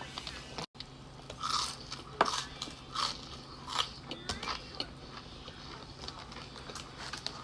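Close-up chewing of fast food, with several separate crisp crunches about every half to one second.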